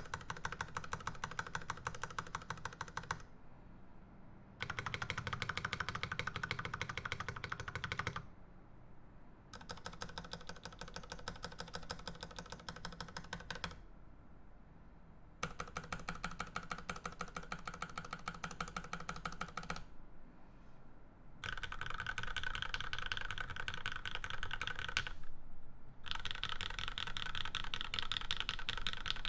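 Typing on a Percent Canoe Gen2 mechanical keyboard with lubed Cherry Hyperglide MX Black linear switches on a 3mm aluminium plate with GMK keycaps: fast keystroke clatter in six runs of a few seconds each, separated by short pauses. The last two runs are brighter and a little louder.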